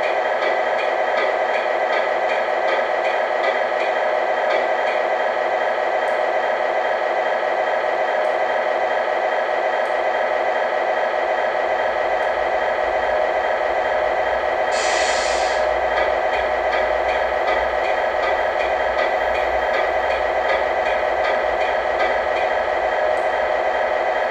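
Simulated heavy diesel truck engine idling steadily from a 1/14 Volvo FH16 RC truck's sound unit, with a short hiss of air about fifteen seconds in.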